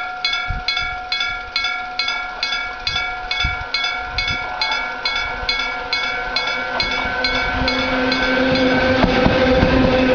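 Electric gong-type level-crossing bell striking steadily about three times a second, each stroke ringing on. From about seven seconds in, an approaching freight train grows louder with a low hum and drowns out the bell.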